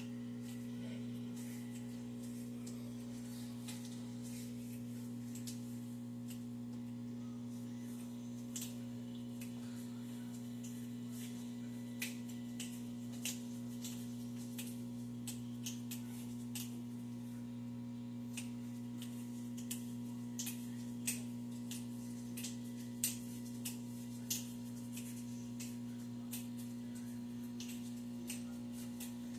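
Microwave oven running with a steady electrical hum. Scattered sharp clicks and pops come more often from about eight seconds in.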